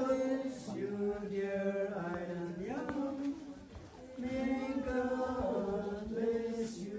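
People singing a birthday song together as the cake is cut, holding long notes that step from one pitch to the next.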